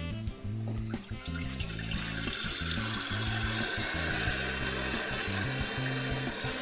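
Water from a kitchen tap running into a stainless-steel electric kettle as it is filled: a steady rushing hiss that comes in about a second and a half in.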